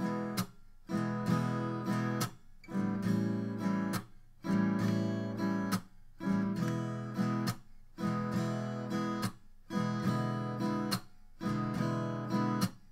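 Acoustic guitar strummed in a swung blues strum, a loping long-short rhythm of eighth notes, playing the opening bars of a 12-bar blues in E.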